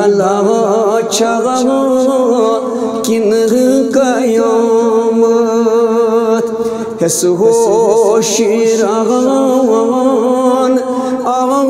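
A man's voice singing a Kashmiri manqabat (devotional song) in a wavering, ornamented melody over a steady held drone.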